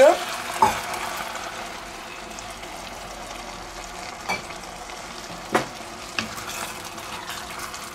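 Ground meat and vegetables sizzling in a pot as liquid is poured in, loudest in the first second, then a steady frying hiss while a wooden spatula stirs and knocks against the pot a few times.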